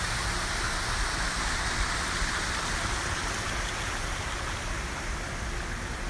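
Small waterfall pouring down a stone wall into a rock pool, a steady rush of splashing water that grows slightly fainter near the end.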